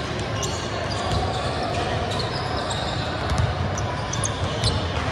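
A basketball bouncing on a gym floor during a game, with short high squeaks from shoes on the court. Under it is a steady wash of voices in a large hall.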